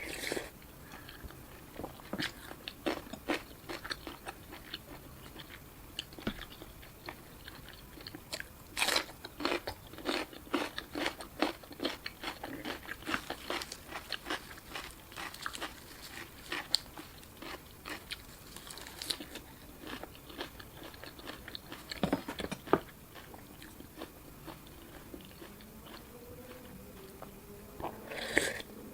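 Close-miked eating: a person biting, crunching and chewing food in a quick, irregular run of crisp clicks and crunches, with a few louder bites along the way.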